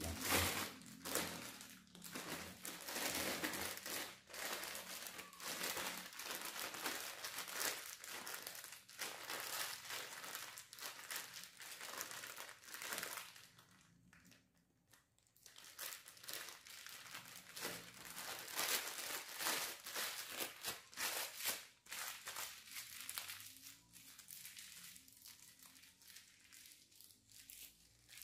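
Thin plastic bag crinkling and rustling in hands as bait dough is worked into one corner of it. The crinkling comes in two long spells with a short pause about halfway and fades near the end.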